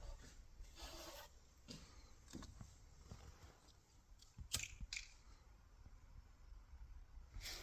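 Near silence with faint, scattered small handling noises, soft rustles and clicks, and one sharper click about halfway through.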